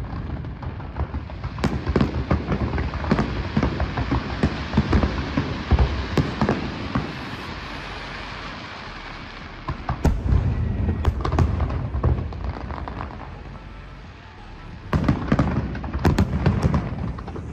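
Fireworks display: shells bursting with repeated booms and dense crackling. The bursts ease off after about seven seconds and come thick and fast again near the end.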